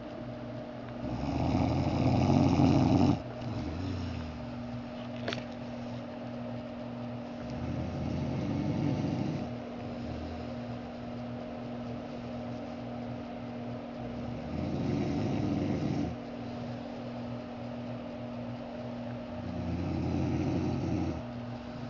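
A man snoring in his sleep: four long, rough snores about every six seconds, the first the loudest and cutting off abruptly.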